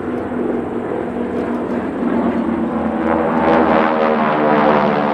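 Formation of five North American T-6/SNJ Texans passing overhead, their nine-cylinder Pratt & Whitney R-1340 radial engines and propellers running with a steady pitched drone. The sound grows louder about three seconds in as the formation comes overhead.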